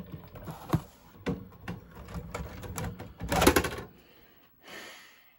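Clicks and clatter of a VCR being stopped and a VHS cassette handled and ejected. The clatter is loudest about three and a half seconds in, and a short hiss follows near the end.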